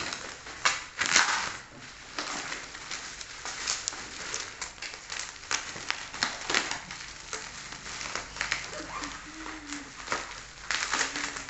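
Black plastic parcel wrapping crinkling and crackling as it is cut and pulled open by hand, in irregular rustles with the loudest crackle about a second in.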